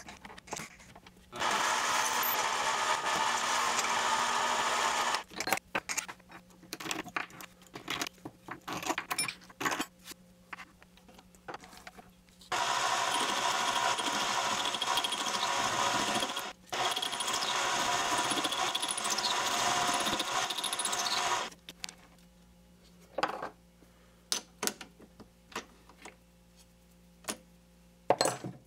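Chinese mini metal lathe running and cutting acetal plastic stock with a radius tool to form a bending mandrel: three stretches of steady cutting noise of about four seconds each, the last two split by a brief stop. Between and after them come scattered clicks and taps of handling at the lathe.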